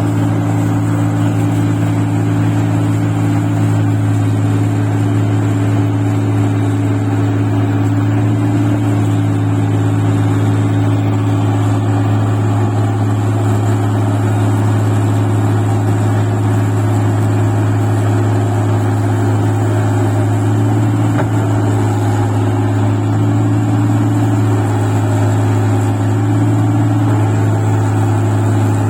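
Engine of a rice-paddy machine running steadily under load in deep mud, a constant low drone with no change in speed.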